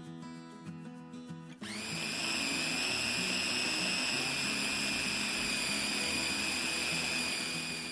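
Electric mini food chopper's motor running, grinding chicken fillet with onion, garlic and egg yolk into a paste. It starts about a second and a half in with a quick rising whine, then runs as a steady high whine that eases off near the end.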